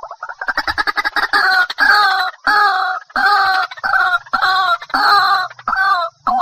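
White-breasted waterhen calling loudly. A quick run of short notes at the start runs into repeated croaking phrases, about three every two seconds.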